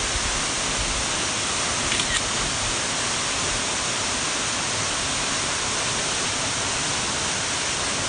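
A waterfall plunging into a pool: a steady, even rush of falling water.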